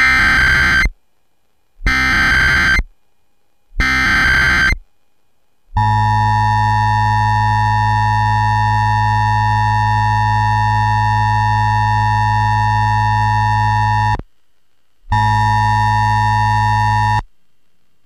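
Emergency Alert System test received over FM radio. It opens with three roughly one-second bursts of SAME header data, a rapid digital warble. The steady two-tone attention signal follows for about eight seconds, then after a short break the same tone sounds again for about two seconds.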